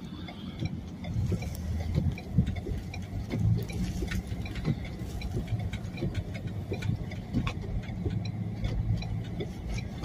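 Vehicle engine running at low revs, heard from inside the cabin as a steady low hum, with scattered light clicks throughout.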